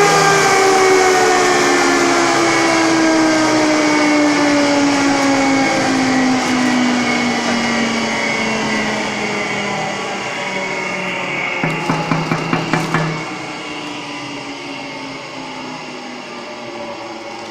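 Flour mill's motor and rotor winding down, the hum falling steadily in pitch and loudness as it slows. About twelve seconds in comes a quick run of about six knocks, after which a quieter steady noise remains.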